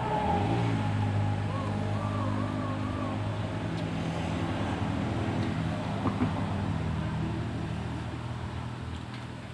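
A motor vehicle engine running steadily with a low hum, fading near the end.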